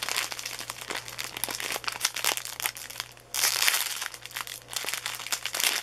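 Clear plastic bags of diamond painting drills crinkling and crackling as they are handled, loudest for about a second just past the middle.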